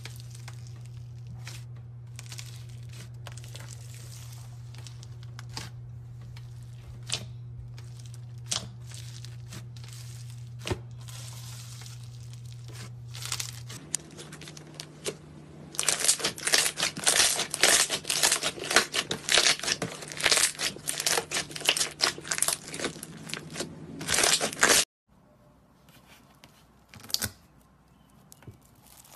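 Hands squishing slime. Foam-bead slime crackles softly over a low steady hum, then a glossy slime is pressed and folded with loud, dense crackling and popping for about nine seconds that stops abruptly. A few faint clicks follow as a bead-filled slime is handled.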